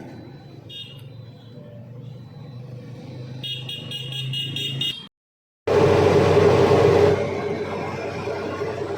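Truck engine running low, with a fast run of ticks about three and a half seconds in. After a short break, a loud, steady horn blast lasts over a second and settles into a slightly quieter drone.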